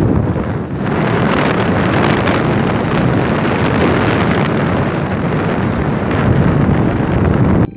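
Strong wind buffeting the phone's microphone in an unsteady, rumbling rush, with a nylon rain jacket flapping in it. It cuts off suddenly near the end.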